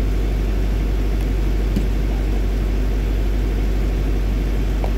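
A steady, loud low rumble with no clear pitch, unchanging throughout, with a faint click about two seconds in.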